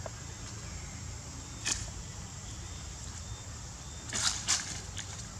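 Dry leaves rustling and crunching in two short loud bursts about four seconds in, as small macaques scramble over them, after a single sharp click earlier on. Under it runs a steady outdoor hum with a faint high whine.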